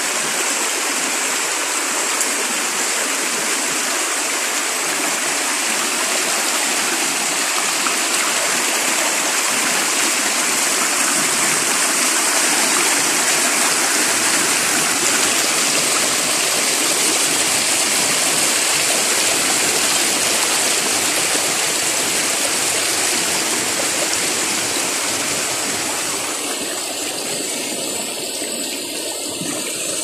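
Small rocky forest stream rushing and splashing over stones in little cascades, a steady water rush, with a thin steady high chirring of crickets above it. The rush softens a little near the end.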